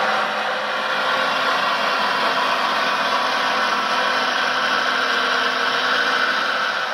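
Hydraulic pump of a 22 kg steel RC Liebherr 956 excavator model whining steadily while the upper structure slews round.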